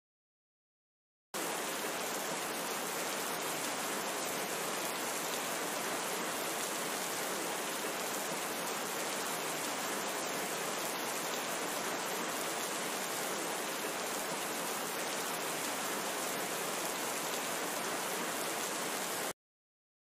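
A steady, even rushing hiss of noise, like heavy rain or rushing water, that switches on abruptly a little over a second in and cuts off just as abruptly about a second before the end.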